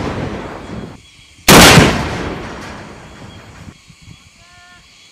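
M3 Carl Gustaf 84mm recoilless rifle firing. The tail of one blast fades at the start, then a second loud blast comes about a second and a half in and dies away slowly over about two seconds.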